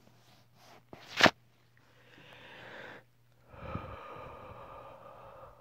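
A sharp click close to the microphone about a second in, then two long, soft breaths into the microphone, the first swelling, over a faint steady low hum.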